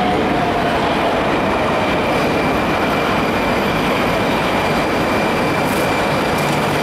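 Moscow Metro 81-760A/761A 'Oka' train pulling into an underground station platform: a steady, loud rumble of wheels and running gear echoing in the station, with a faint falling tone in the first second and a thin high tone held from about a second and a half in.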